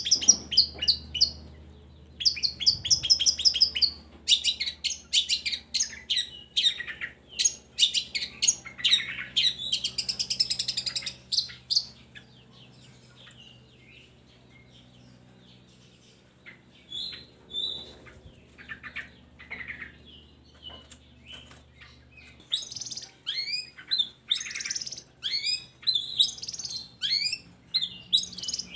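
Long-tailed shrike (cendet) singing a fast, varied run of high chirps and trills, used as lure song to set other cendets singing. The song thins to scattered notes about twelve seconds in and picks up again near the end.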